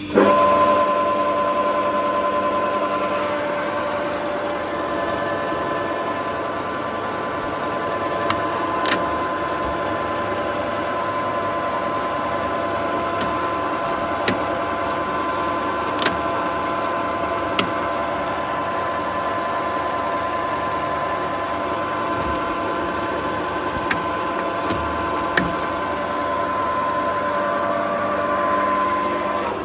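Harrison L5A lathe running under power, its headstock gear train giving a steady whine that comes in abruptly as the clutch engages and drops away at the end, leaving only the motor's lower hum. A few sharp clicks sound over the running.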